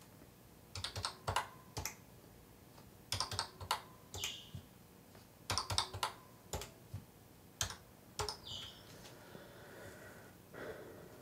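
Keys of an HP-97 calculator being pressed: sharp plastic key clicks in irregular quick groups, with short pauses between the groups.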